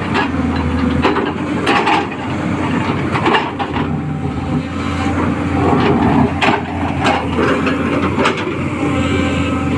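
A hydraulic crawler excavator's diesel engine running steadily, with irregular knocks and clanks from the machine working.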